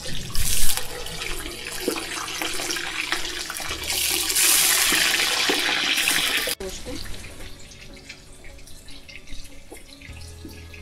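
Pieces of pork entrecote deep-frying in a kazan of hot sunflower oil, a loud steady sizzle. About six and a half seconds in it drops suddenly to a quieter sizzle with scattered pops.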